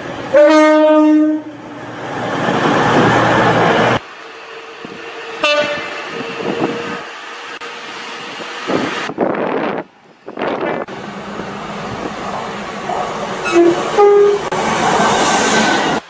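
British trains sounding their horns in several short cut-together clips. A horn blast lasts about a second near the start, a brief toot comes around five and a half seconds in, and two short notes at different pitches sound near the end. Between them is the noise of trains passing through stations.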